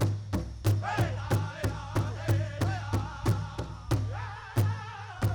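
Powwow drum group playing a chicken dance song: singers striking a large bass drum together in a steady beat about three times a second while singing in high, wavering voices.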